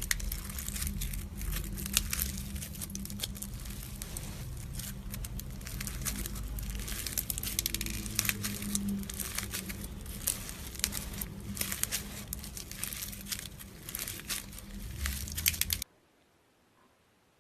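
Slime being squeezed and worked by hand, giving a dense run of crinkly, crackling little pops and clicks that cuts off abruptly near the end.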